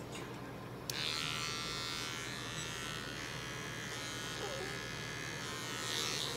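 Cordless electric hair clippers shaving the fur on a cat's foreleg: switched on about a second in, then buzzing steadily.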